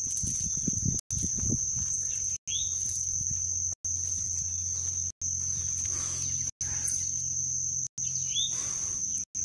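Steady high-pitched insect drone, with two short bird chirps about two and a half and eight and a half seconds in and some low rumbling in the first second and a half. The whole sound cuts out briefly about every second and a half.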